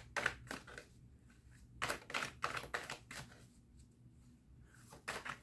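Deck of tarot cards being shuffled by hand: quick papery clicks in a few short spells with pauses between, the longest about two seconds in.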